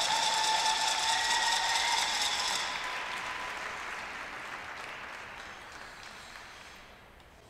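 Audience applauding, loudest in the first two to three seconds and then slowly dying away.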